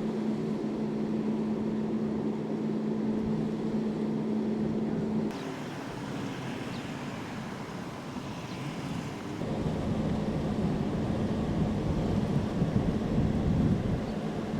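Outdoor background noise: a steady low hum with rumble for about five seconds, then a thinner even hiss, then a heavier low rumble like traffic and wind on the microphone, each change coming abruptly.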